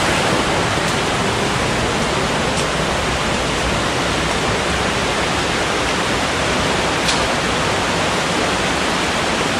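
Steady rush of falling water from the cave's underground waterfalls, with a couple of faint clicks.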